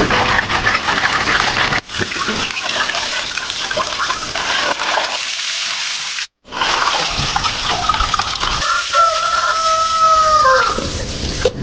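A rooster crowing once, about nine seconds in: one long held call that drops in pitch at the end. Before and around it runs a dense, crackling rustle of handling noise, broken twice by brief cuts.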